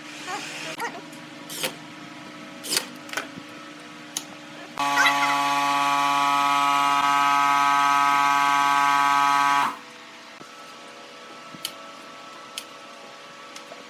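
A power tool's motor runs at a steady pitch for about five seconds, then stops abruptly. Before it come a few light knocks and clicks of handling wood and tools.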